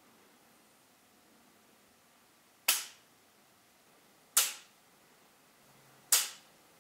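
Three sharp gunshots, evenly spaced about 1.7 seconds apart, each with a short echo.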